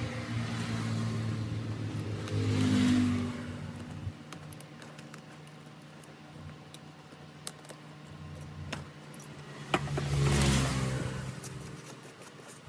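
A motor vehicle engine swells up and fades away twice, passing by about two to three seconds in and again near ten seconds, with scattered small sharp clicks in between.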